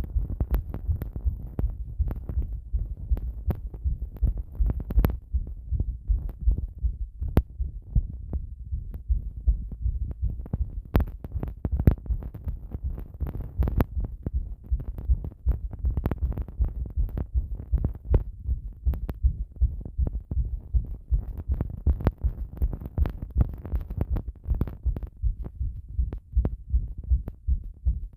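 Human heartbeat recorded after a bath: a steady run of low thumps, with a few sharp clicks now and then.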